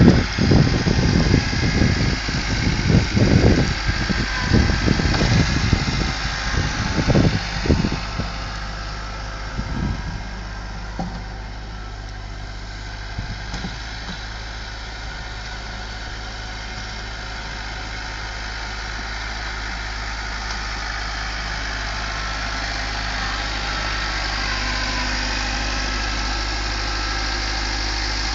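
Kubota tractor's diesel engine running steadily, growing gradually louder toward the end. For the first ten seconds or so, gusts of wind rumble over the microphone on top of it.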